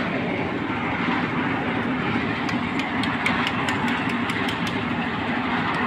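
An engine running steadily, with a quick run of light clicks or rattles from about two and a half seconds in.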